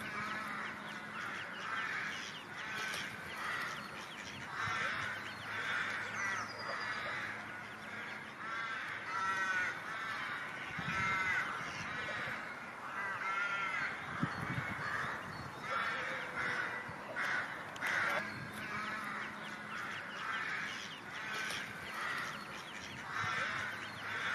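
A group of birds calling, many short calls repeating and overlapping one another.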